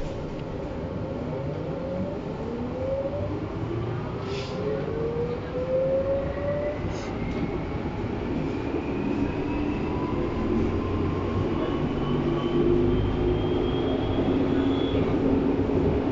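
Berlin U-Bahn class H train pulling away and accelerating, heard from inside the car. Its traction motors whine in several tones that rise in pitch, over a running rumble that slowly grows louder.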